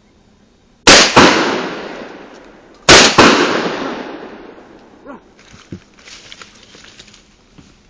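Two shotgun shots about two seconds apart, each a sharp blast that rings out and fades over the next couple of seconds.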